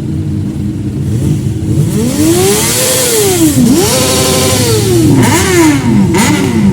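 Motorcycle engine idling, then revved up and let fall about five times, the blips coming quicker near the end.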